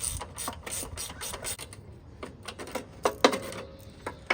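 Hand ratchet wrench clicking in quick, even strokes as a bolt is worked loose, then a louder metal clank about three seconds in.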